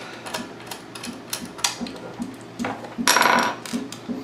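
Small metal clicks and clinks of a Phillips screwdriver and small screws against the metal casing as a hard drive's mounting screws are put in, with a louder metallic rattle about three seconds in.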